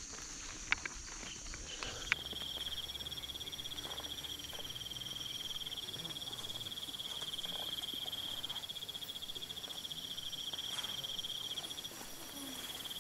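Forest insects trilling steadily: a high, finely pulsing buzz. There are a few sharp clicks in the first two seconds, and about two seconds in the sound changes abruptly to a different, lower trill that carries on.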